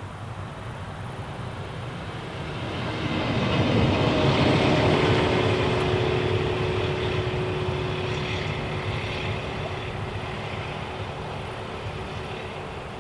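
Red Deutsche Bahn V 90-family diesel shunting locomotive running light past at close range. Its engine rumble swells to a peak about four to five seconds in, with a whine that drops in pitch as it goes by, then fades as the locomotive moves away.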